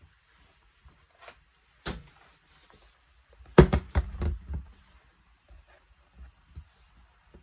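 Knocks and clicks from handling the MacBook Pro on the bench, with a louder cluster of several knocks about three and a half seconds in.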